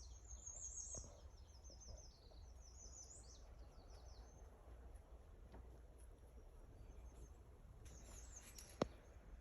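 Faint songbird singing: a long run of quick, high, down-slurred notes over the first few seconds, then a shorter burst near the end. A single sharp click sounds just before the end.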